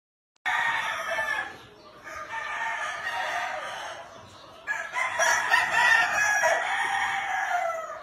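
Gamefowl roosters crowing, one crow after another, starting about half a second in; the last crow is the longest and loudest and drops in pitch at its end.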